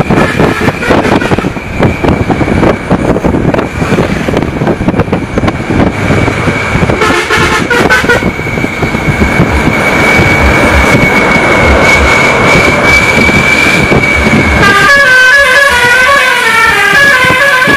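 Sri Lankan bus running along a road, its engine and road noise rumbling under a steady high tone. Its musical horn plays a brief run of notes about seven seconds in, then a longer tune of quickly stepping notes from about fifteen seconds in.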